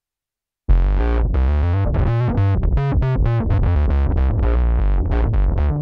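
Electric bass played through an MXR Poly Blue Octave pedal, with Ampeg SGT-style preamp drive and Spectracomp compression: a run of quick notes with a heavy low end and bright upper overtones, starting abruptly under a second in after silence.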